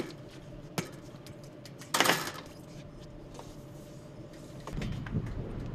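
Rooftop solar-panel installation work: a few sharp knocks and a brief, loud clattering scrape about two seconds in, as of aluminium mounting rails or panels being handled, over a faint steady hum.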